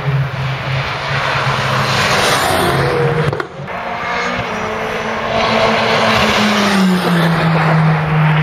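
Race car engines passing at speed, one after another. The first car's engine fades about three and a half seconds in. A second car then approaches and goes by, its engine note dropping in pitch as it passes.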